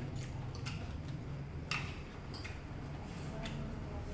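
Close-up eating sounds: irregular wet clicks of chewing and lip smacking from people eating with their hands, a few a second, one louder than the rest partway through, over a low steady hum.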